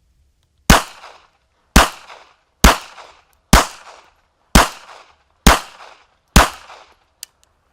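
Seven shots from a Kel-Tec .32 ACP pocket pistol, fired at a steady pace of about one a second, each a sharp crack with a short echo. A small click follows near the end.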